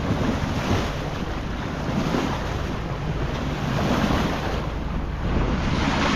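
Wind buffeting the microphone over the wash of sea water along a sailboat's hull, rising and falling in gusts, with a steady low drone of the boat's engine underneath as it motors.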